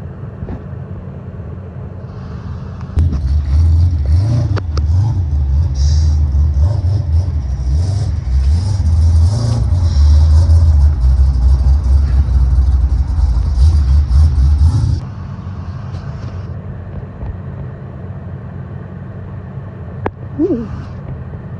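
Car engine and road noise heard from inside the cabin: a deep rumble that jumps sharply as the car accelerates hard, stays loud for about twelve seconds, then drops back to a steady cruising drone. A sharp click and a short squeak come near the end.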